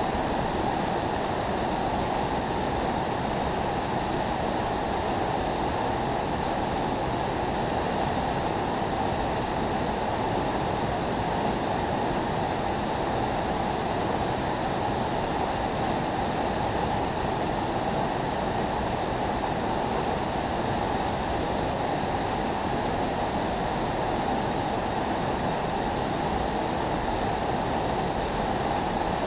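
Steady, even rush of river water pouring through a spillway.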